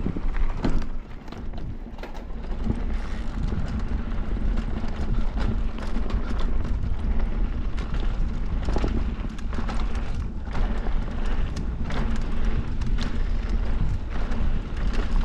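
Wind buffeting an action camera's microphone, with tyre noise and frequent knocks and rattles from an electric mountain bike riding over rough trail.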